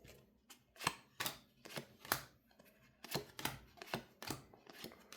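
Trading cards from a freshly opened booster pack being flipped through one by one: a string of light, sharp card clicks and snaps, roughly two a second.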